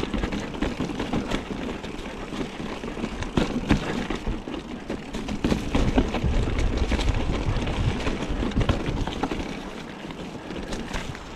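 Mountain bike riding down rough trail, its frame and parts rattling and knocking over rocks, with strong wind buffeting the microphone.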